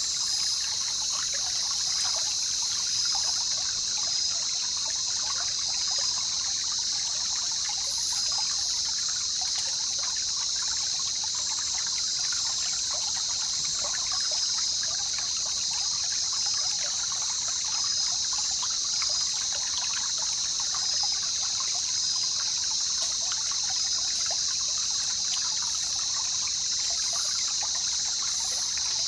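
Jungle river ambience: water trickling and babbling steadily, under a loud, continuous high-pitched chorus of insects with a faint regular pulse.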